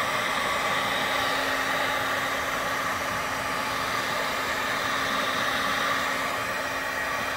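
Heat gun running on its high setting: a steady rush of blown air over a constant low motor hum.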